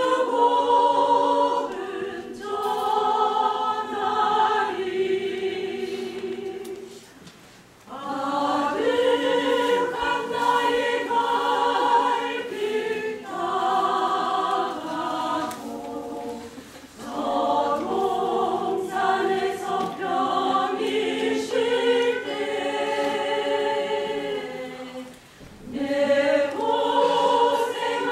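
Women's choir singing a Korean hymn, with three short breaks between phrases, about 7, 16 and 25 seconds in.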